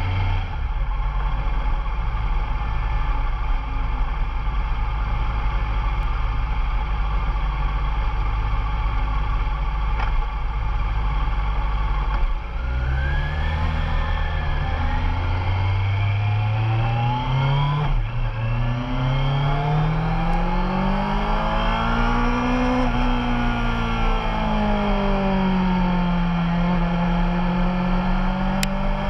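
Motorcycle engine idling steadily, then pulling away about halfway through: the revs climb, drop with an upshift, climb again to a peak, then ease off and settle at a steady speed.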